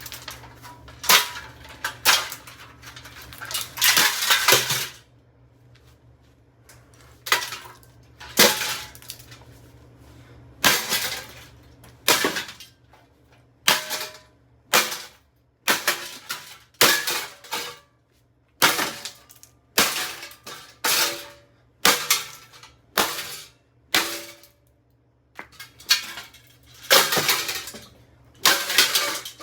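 AeroSpeed BX100 box fan being smashed: about twenty hard, irregular blows, roughly one a second, each a crash with rattling of its flimsy housing and grille, with a short lull about five seconds in.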